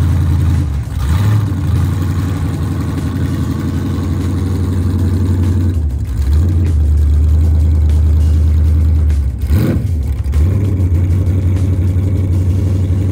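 Holden Torana SLR 5000 pro streetcar's engine idling loudly with a low, pulsing exhaust note, given one short rev a little after nine seconds in.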